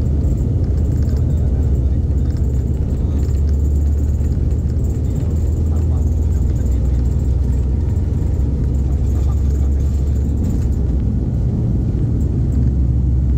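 Twin turboprop engines of an ATR airliner at takeoff power during the takeoff roll, heard inside the passenger cabin as a loud, steady, low drone.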